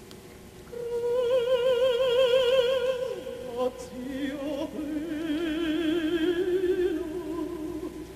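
A solo operatic voice singing slow, long held notes with strong vibrato, coming in about a second in.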